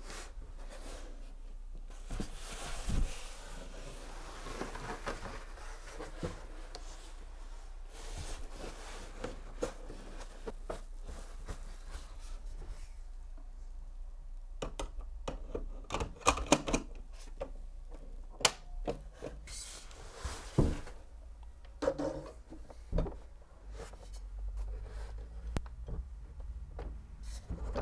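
Handling noises as a computer monitor's stand is fitted to the back of the panel: rustling of the foam tray and protective sheet, then a run of clicks and knocks, busiest past the middle, as the stand goes on and the monitor is set upright.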